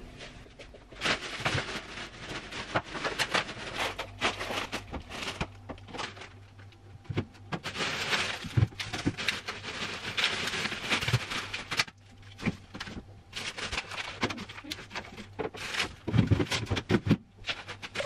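Plastic carrier bags rustling, with groceries being handled and set down with irregular knocks and clicks while shopping is unpacked into the fridge.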